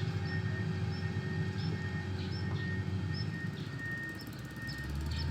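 Heavy road-works machine engine running steadily with a low rumble that eases briefly near the end, while a bird chirps over it about twice a second.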